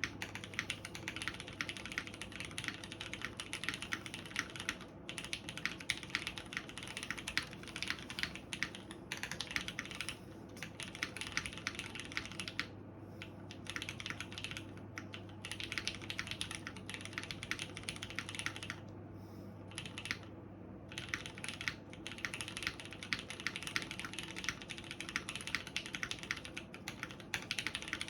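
Fast, continuous typing on a Ryujin custom mechanical keyboard with Cherry MX Brown tactile switches and GMK Griseann keycaps: dense key clacks that break off in a few short pauses. A steady low hum sits underneath.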